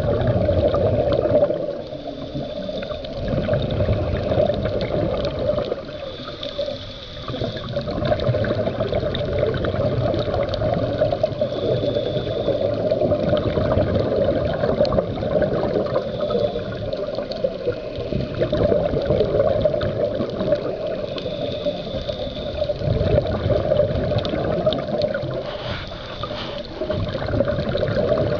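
Scuba breathing heard underwater: exhaled regulator bubbles gurgle and rush, swelling and easing every few seconds with each breath.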